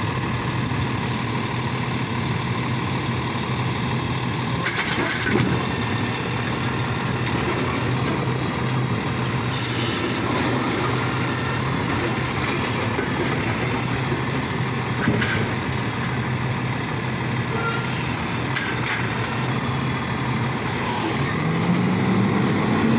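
Automated side-loader refuse truck's engine running steadily while its hydraulic arm lifts a recycling cart over the hopper, empties it and sets it back down. There are sharp clunks about 5 and 15 seconds in, and the engine revs up near the end.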